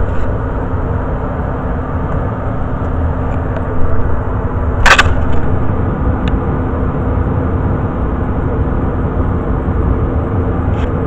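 Old Day and Night gas furnace's blower fan running on steadily with a constant hum after the gas burners have been shut off, circulating the leftover heat before its fan control switches it off. A single sharp click sounds about five seconds in.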